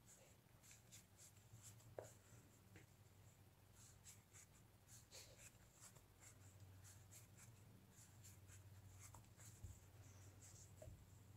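Faint, irregular rustling and soft scratching of chenille yarn being worked with a wooden crochet hook and drawn through the stitches, over a steady low hum.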